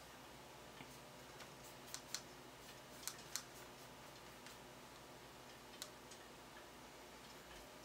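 Near silence: faint room tone broken by a few small, irregular clicks, the sharpest as two pairs about two and three seconds in.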